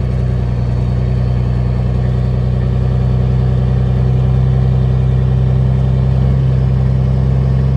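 Semi truck's diesel engine running steadily at an even speed.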